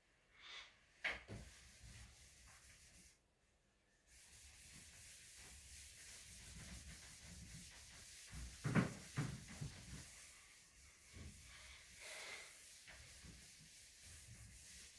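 An eraser rubbing across a whiteboard, wiping off marker writing: a steady scrubbing hiss, with a few louder knocks about halfway through.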